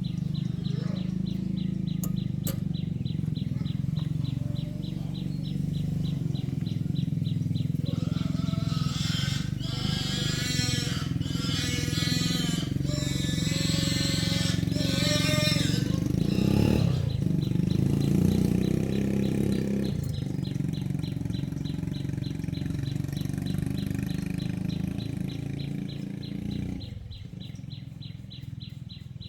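An engine running steadily with an even low drone, with a fast, regular ticking over it and wavering high calls for several seconds in the middle. The drone drops away near the end.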